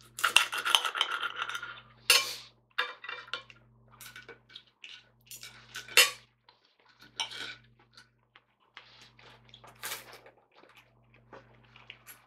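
Knife and fork scraping and clinking against a plate while cutting up a fried breakfast. The first two seconds are a continuous scrape, followed by separate clinks and short scrapes, the sharpest about two, six and ten seconds in.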